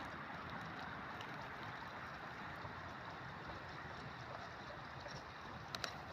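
Taro pieces frying in oil over a wood-fired stove, a steady sizzle with two sharp crackles near the end.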